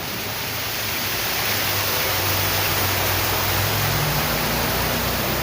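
Heavy rain falling, a steady dense hiss, with a low rumble underneath for a few seconds in the middle.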